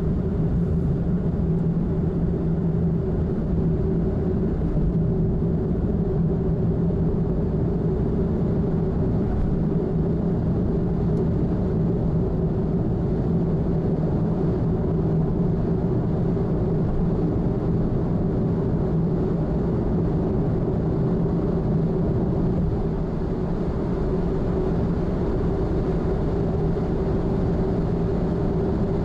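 Steady road and engine noise heard inside a car cruising on an expressway: a constant low drone with tyre rumble.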